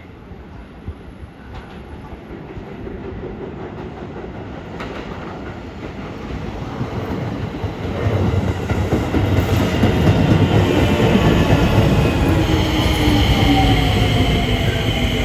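Keio 8000-series electric train pulling into the station, growing steadily louder as it approaches, with wheels clattering on the rails. A whine falls in pitch as it slows, and a high steady squeal joins in the last few seconds.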